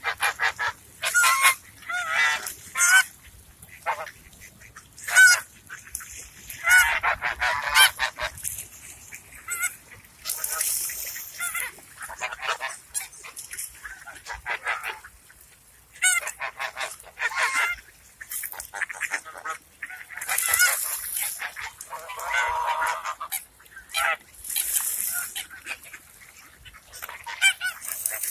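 A flock of white domestic geese honking over and over in short, overlapping calls as they crowd in to be hand-fed.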